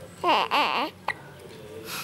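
A baby's voice: two short vocal sounds, each rising and then falling in pitch, followed by a brief sharp click about a second in.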